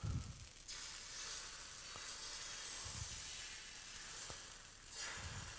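Runny pancake batter sizzling as it is squeezed from a squeeze bottle onto a hot griddle, a steady hiss that comes in under a second in and fades near the end.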